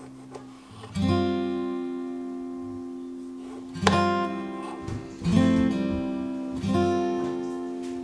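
Background music: acoustic guitar chords strummed four times, each left to ring and fade.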